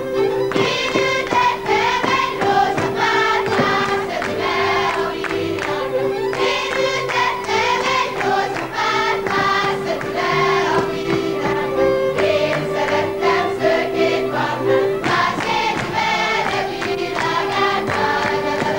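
A group of young voices singing a folk song together in chorus, with one steady held tone running beneath the voices.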